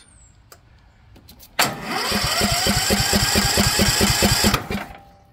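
Cub Cadet XT1 lawn tractor engine being cranked by its electric starter for about three seconds, starting suddenly about a second and a half in, with an even chugging beat of about six a second under a rising whine, then stopping without the engine catching. It cranks without firing, the sign of the fault the owner traces to loose wires feeding the carburetor's anti-backfire fuel solenoid.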